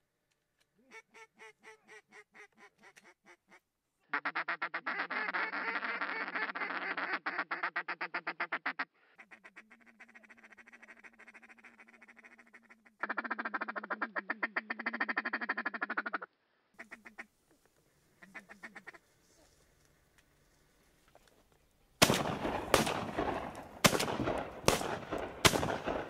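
A duck call blown in runs of fast, rapid quacking. Near the end comes a volley of about five or six loud shotgun shots in quick succession.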